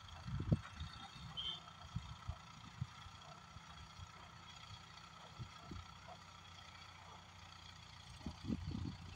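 Faint steady hum of a hydra mobile crane's diesel engine running at a distance while it holds a load. Gusts of wind rumble on the microphone, briefly about half a second in and more strongly near the end.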